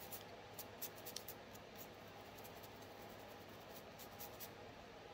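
A small cleaning brush scrubbing a Glock's recoil spring assembly: faint quick scratchy strokes, a run of them in the first two seconds and a few more around four seconds in.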